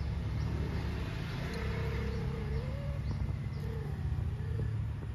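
A cat yowling in two long, wavering calls, the first about two seconds long and rising at its end. Under them runs a steady low rumble, with a few faint bird chirps.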